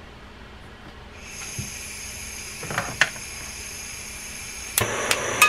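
Butane plumber's torch: a steady gas hiss from about a second in, with a few sharp clicks, then a sudden louder rushing near the end as the torch is lit and burning.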